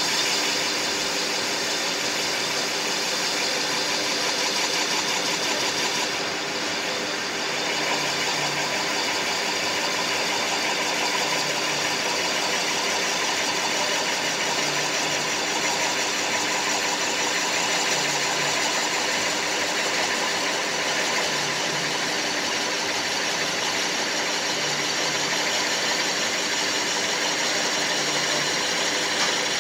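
Metal lathe turning a PTFE (Teflon) cylinder while the cutting tool takes a pass: a consistent scraping cut over the steady hum of the lathe's motor and gearing, easing slightly for a moment about six seconds in.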